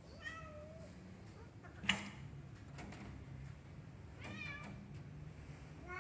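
Domestic cat meowing twice, short calls that bend in pitch, with a single sharp click about two seconds in.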